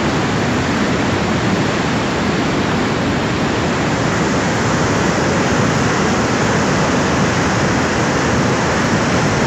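Loud, steady rush of fast-flowing floodwater, an even roar with no breaks.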